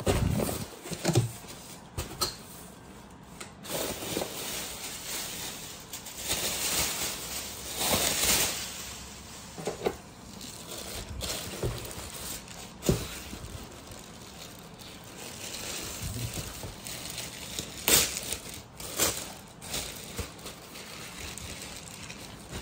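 Clear plastic wrapping crinkling and cardboard box flaps rustling as a tote bag is unpacked by hand, in irregular bursts with a few sharper crackles.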